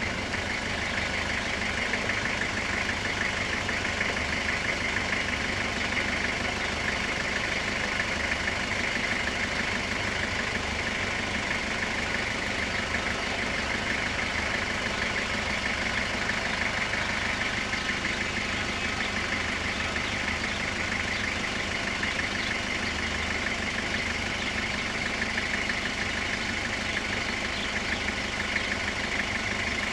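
Level crossing warning bell ringing fast and without a break while the barriers are down, with a low engine idling underneath.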